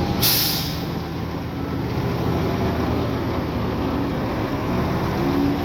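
Heavy diesel earthmoving machinery running steadily, with a short burst of hiss just after the start.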